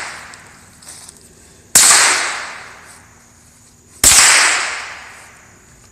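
Two shots from a .22 LR gun, about two seconds apart. Each is a sharp crack that trails off over a second or more.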